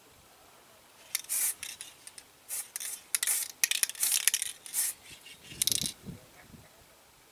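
Hand work on a small diecast metal model: irregular short bursts of scraping and rubbing with light metallic clicks and taps.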